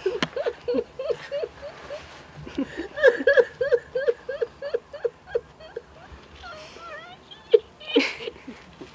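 A person's voice in short, rhythmic pitched pulses, about three or four a second, loudest from about three seconds in, then a brief noisy burst near the end.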